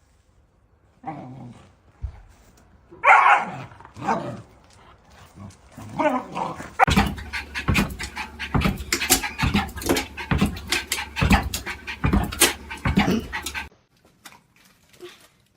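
A dog vocalising, with a louder call about three seconds in. From about seven seconds in comes a fast run of sharp clicks and knocks, which cuts off suddenly near the end.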